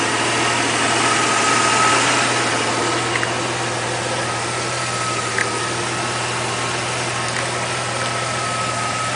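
Car engine idling steadily, a constant low hum under a thin, steady high whine.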